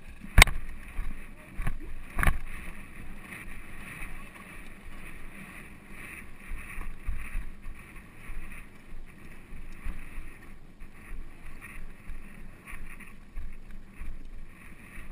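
Ride noise from a cantering polo pony carrying the camera: uneven rumbling from the horse's movement and wind on the microphone. There are two sharp knocks in the first few seconds.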